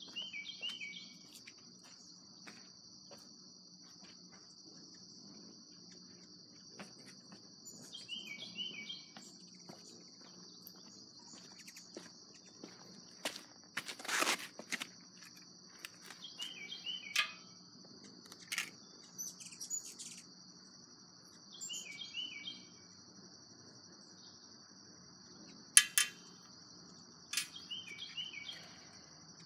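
Steady high-pitched drone of insects, with a bird repeating a short call of a few stepped notes falling in pitch every five to eight seconds. Under it runs a faint low hum from an air conditioner. Scattered handling clicks and rustles, with a louder rustle about halfway through as someone sits down and two sharp clicks near the end.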